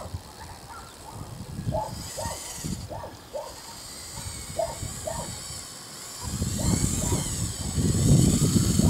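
Radio-controlled Bruder CAT wheel loader model driving on gravel: its small motors running and its wheels and bucket crunching and scraping through the gravel. It gets much louder from about six seconds in, as the lowered bucket pushes into the gravel.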